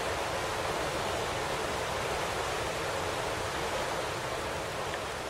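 A whitewater river rushing steadily.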